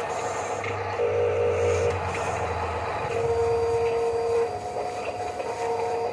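Radio-controlled construction models working: motors whining in on-off spells of a second or so, over a steady mechanical hiss and a low hum in the first half.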